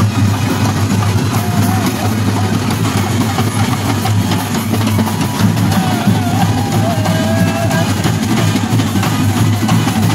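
Street brass band playing: bass drums and snare drums beating quickly and steadily under the music. Brass horns carry a wavering melody that stands out most in the middle.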